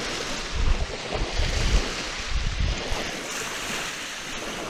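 Small waves lapping and washing onto a sandy beach, with wind gusting on the microphone through the first half.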